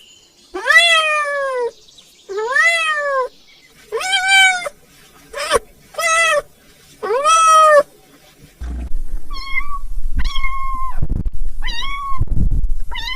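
Kittens meowing: six drawn-out meows, each rising and then falling in pitch, then from about nine seconds in a few shorter, higher mews over a low rumbling noise.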